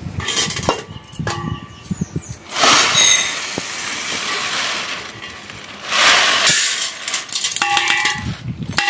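Metal kitchen utensils and vessels clinking and clanking, with short ringing tones. About two and a half seconds in comes a rushing noise lasting about three seconds, with a brief second burst a little after.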